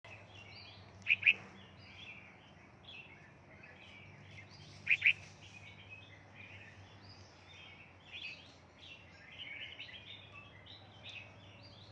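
Several bulbuls chirping and calling together in short, overlapping notes, with a loud, sharp two-note call about a second in and again about five seconds in.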